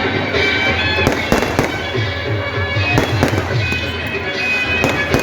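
Fireworks going off in several sharp bangs, about five in all, over loud music with high held wind-instrument tones and a low pulsing beat.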